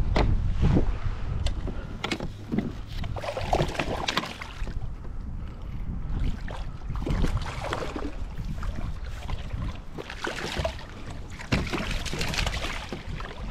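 Water splashing irregularly as a hooked rainbow trout thrashes at the surface beside a kayak and is scooped into a landing net, with more splashing near the end.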